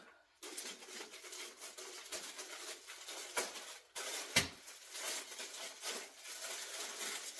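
Packaging rustling and crinkling as it is handled on a kitchen counter, with two sharp knocks about three and a half and four and a half seconds in.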